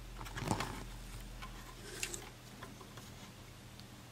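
Faint handling noises from a circuit board and its wiring being pressed into place inside a radio transceiver's chassis: a short rustle about half a second in, a sharp click near the middle, and a few light ticks.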